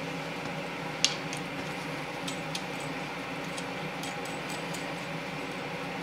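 Light metallic clinks of bolts and washers being handled and started by hand into the camshaft timing gear of a Chrysler 383 big-block, with one sharper click about a second in, over a steady background hum.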